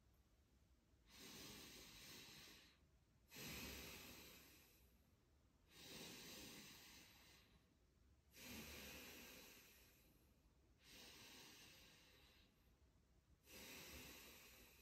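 A man breathing slowly and deeply in the paced rhythm of a chi gung exercise. Six faint, airy breaths come about every two and a half seconds, each starting suddenly and fading away.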